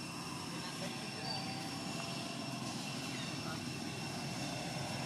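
Steady outdoor background: an even low rumble, like a distant engine, with a thin, high steady tone above it.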